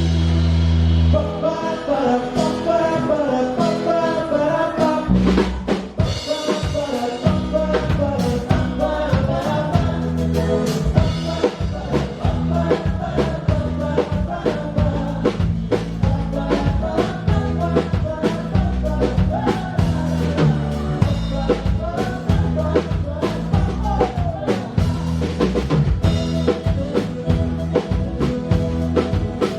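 Live band playing a song on stage: drum kit keeping a steady beat under bass and a moving melody line, heard from the stage.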